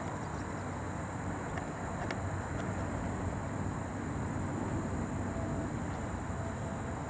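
Steady outdoor background: a rushing, wind-like noise with a continuous high, even buzz above it.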